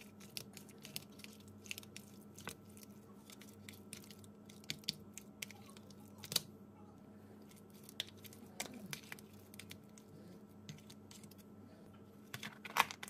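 A fork stirring thick hung curd with chopped vegetables and mayonnaise in a plastic container: soft squishing with scattered light clicks of the fork against the plastic, a few louder clusters of clicks about six seconds in and near the end, over a faint steady hum.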